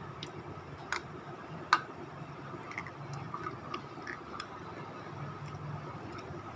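Close-up mouth sounds of a person chewing a white crunchy lump, with two sharp crunchy clicks about one and nearly two seconds in, the second the loudest, then lighter scattered clicks as the chewing goes on.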